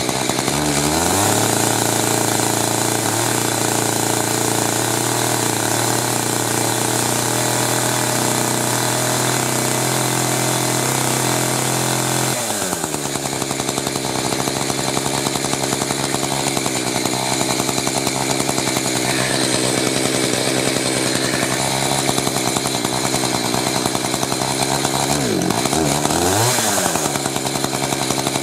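Echo CS-590 two-stroke chainsaw engine running, testing a newly replaced automatic chain oil pump. Its speed picks up about a second in and holds steady, changes again about twelve seconds in, then dips and rises twice near the end.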